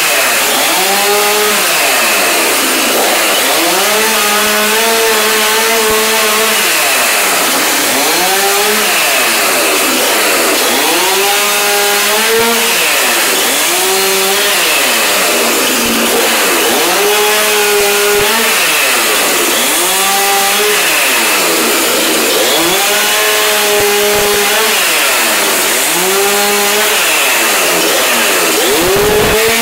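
Chainsaw running hard and cutting into a desk. The engine note sags under load and climbs back again and again, about every two to three seconds, as the chain bites and frees up.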